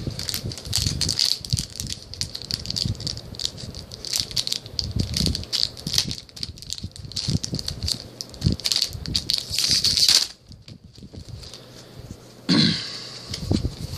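Crinkling and rustling of a foil trading-card booster pack wrapper being torn open and handled: dense rapid crackles that stop about ten seconds in, then a brief louder rustle near the end.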